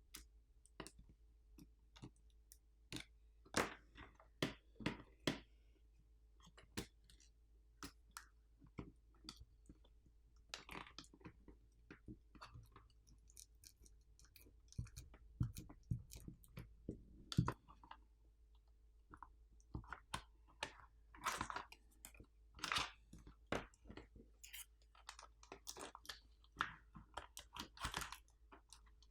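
Hand tools working on a power bank's plastic housing and internal parts during disassembly: irregular faint clicks, taps and short crunchy scrapes, with busier stretches of scraping in the second half.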